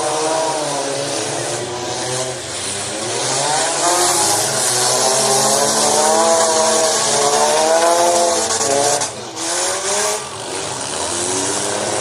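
Several car engines revving up and easing off again and again as the cars circle a dirt track, over a constant rumble and hiss. The sound dips briefly about nine seconds in.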